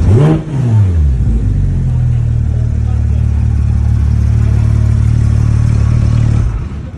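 Porsche 911 GT3 RS's naturally aspirated flat-six blipped once, its revs rising and falling back within the first second, then idling steadily until the sound cuts off near the end.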